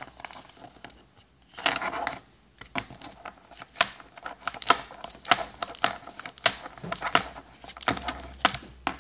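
Battle Spirits trading cards being handled and flipped one at a time. After a quiet opening stretch comes a brief rustle, then a run of irregular, sharp snaps and slides as each card is pulled off the stack.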